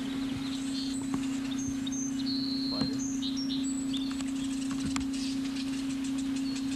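Small birds chirping in short high whistles over a steady low hum, with a few faint splashes as a hooked bass thrashes at the water's surface.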